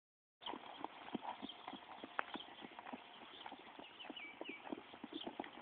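Faint hoofbeats of a horse cantering on a sand-and-dirt arena footing, an irregular run of soft knocks.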